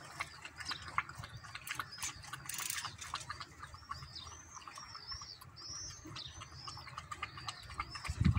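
A small bird chirping in a quick run of short, arched high notes, over scattered light clicks.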